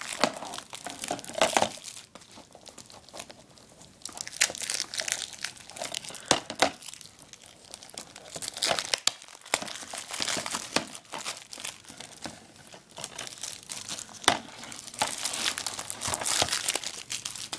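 Plastic shrink-wrap on a DVD case being torn open and peeled off by hand: irregular crinkling with sharp crackles, easing off in short pauses.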